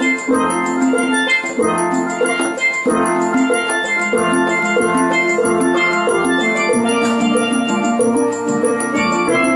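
Steel drums (steelpans) playing a lively, rhythmic island tune, several pans sounding melody and chords together over a steady beat.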